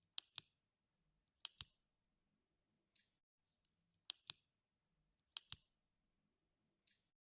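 Sharp mechanical clicks coming in quick pairs, four pairs in all, each pair a fraction of a second apart and spaced roughly a second or more from the next, with faint rustling between.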